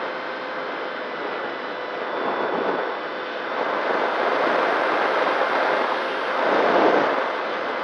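Wind rushing over the onboard camera of a small electric FPV plane (Nano Talon) in flight, with the motor and propeller's faint steady whine underneath. The rush swells a few times as the plane banks, loudest about seven seconds in.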